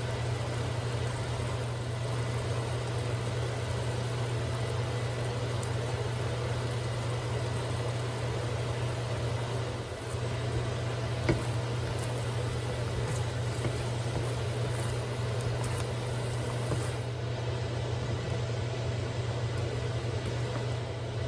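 Steady low hum of a kitchen fan over an even hiss, with one light knock of a wooden spatula against the wok about halfway through.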